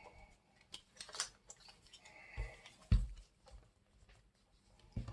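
A few scattered clicks and knocks of plastic shower parts being handled while a stuck inlet-valve fitting is worked at, the loudest knock about three seconds in.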